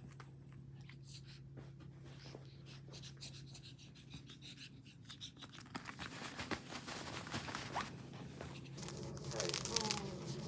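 Small dog chewing: a run of small crunching clicks that grows denser and louder in the second half.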